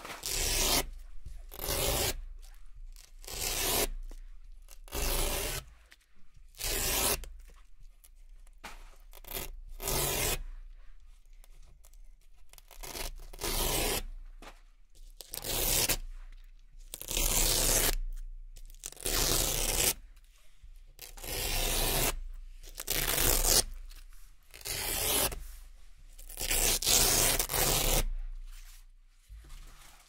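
Velcro (hook-and-loop) strips being peeled off by hand one after another, each a crisp rasping rip of under a second, about one every second and a half.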